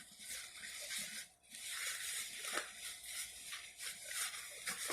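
Rustling and handling noises, uneven and scratchy, with a brief pause about a second and a half in and a few small clicks.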